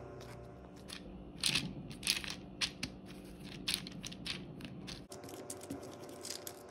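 Crayola Model Magic modelling compound being kneaded and pressed flat onto paper by hand, giving a run of short, crackly squishing clicks from about a second and a half in, over a faint steady hum.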